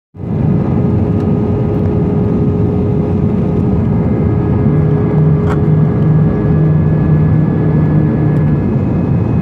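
Airbus A320 cabin noise on approach to landing, heard from a window seat over the wing: a steady rush of jet engines and airflow with a steady hum. A lower hum joins for a few seconds midway.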